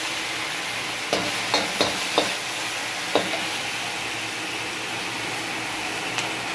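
Chopped vegetables and sauces sizzling in a wok as they are stir-fried with a metal slotted spoon. A few sharp clicks of the spoon against the wok come about one to three seconds in, over a steady hiss of frying.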